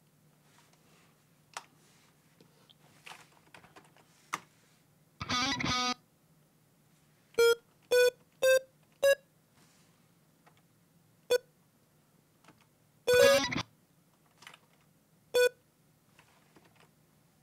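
Short software-synthesizer notes sounding one at a time as they are programmed into a song, most on the same pitch, with two fuller bursts of several notes together. Faint clicks come between them.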